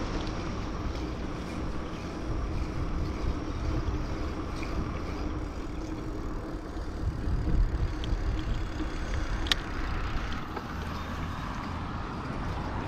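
Riding a bicycle over cracked asphalt: wind buffeting the microphone over the rumble of the tyres on the rough road surface, with a single sharp click late on.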